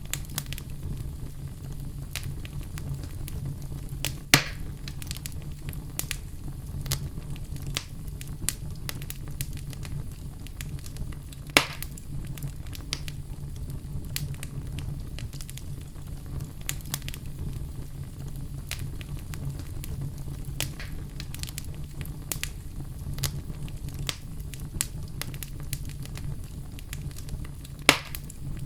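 Wood fire crackling in a fireplace: a steady low rumble of the burning with constant small crackles, and three louder pops at about four seconds, halfway through, and near the end.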